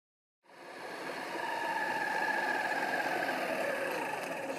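1/8-scale RC Land Rover Defender driving: the whine of its 550-size 21-turn electric motor and drivetrain, cutting in about half a second in, its pitch falling over the last couple of seconds as it slows.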